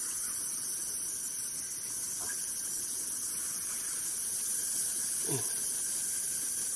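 Steady high-pitched drone of a rainforest insect chorus, with a brief falling squeak about five seconds in.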